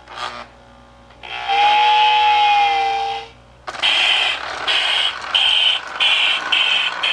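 A Lionel 8206 Hudson's tender whistle blows one long, steady note for about two seconds. Then the tender's sound-of-steam unit starts chuffing, the chuffs coming faster as the locomotive picks up speed.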